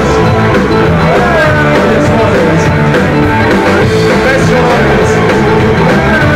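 Live rock band playing loud in a club: guitars and drums with cymbal crashes, and a man singing into the microphone, heard from among the audience.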